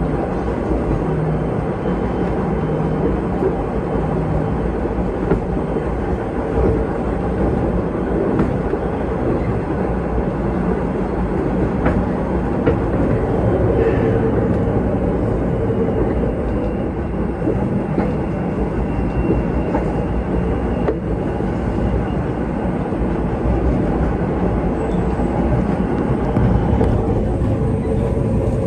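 MBTA Red Line subway train running at speed, heard from inside the passenger car: a steady rumble of wheels on the rails.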